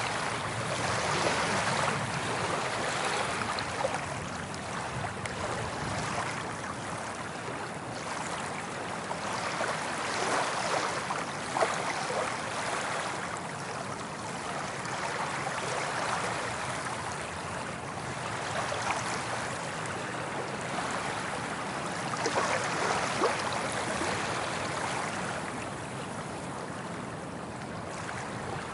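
Soft ocean waves washing onto a beach, the surf noise swelling and fading every few seconds.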